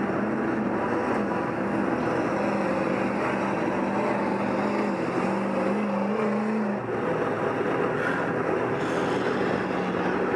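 Sherp ATV's diesel engine running steadily, heard close up from the vehicle. About seven seconds in, the engine note drops as it eases off.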